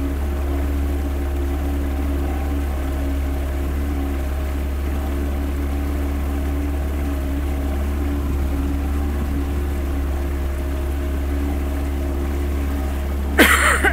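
Small boat's outboard motor running steadily under way, with the wake rushing. A sudden, louder sharp sound breaks in near the end.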